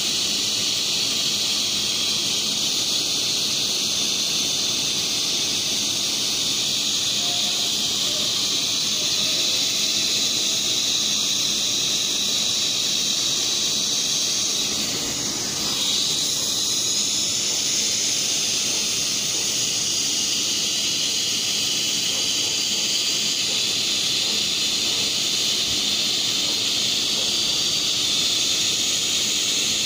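Handheld hot-air plastic welding gun blowing a steady hiss of hot air through its speed-welding nozzle as PP filler rod is fed in and melted into the seam. The hiss dips slightly about halfway through.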